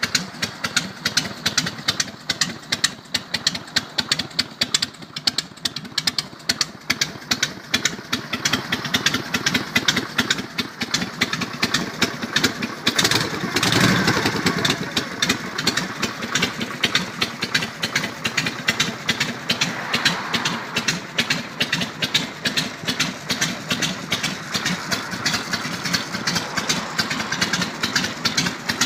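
Harley-Davidson V-twin engine of a custom chopper idling with open exhaust pipes, a steady stream of exhaust pulses. It is blipped briefly about halfway through, then settles back to idle.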